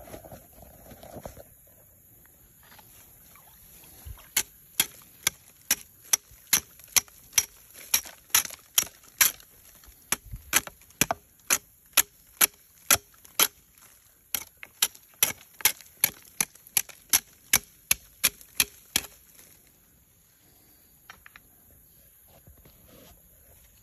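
Aerosol can of tree-marking paint being shaken, the mixing ball clacking sharply about twice a second for some fifteen seconds, with a brief pause partway through.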